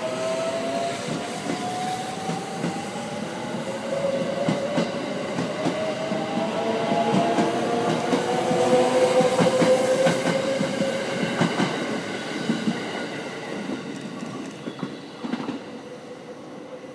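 JR West 681-series electric limited express accelerating away from a station: its traction motors whine in several tones that climb slowly in pitch, with wheels clicking over rail joints. It fades over the last few seconds as it recedes.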